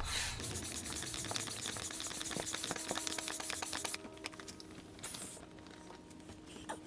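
Manual air pump inflating an inflatable kayak: rapid hissing and clicking of the pump strokes, dropping off sharply about four seconds in, with one brief hiss a second later.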